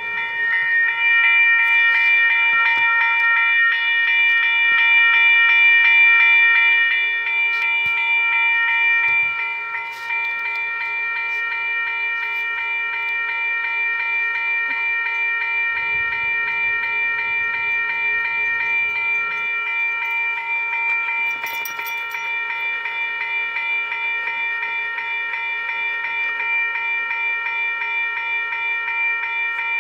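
Western-Cullen-Hayes electronic railroad crossing bell (e-bell) sound played through a small speaker: steady, rapid, continuous dinging at a fixed pitch.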